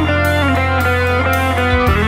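Instrumental rock: a guitar plays a quick run of changing notes over a steady bass line, with drums hitting about twice a second.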